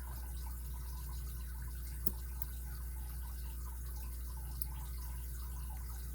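Faint light ticking of a lock pick working the pin tumblers inside a Kryptonite padlock, with one sharper click about two seconds in, over a steady low hum.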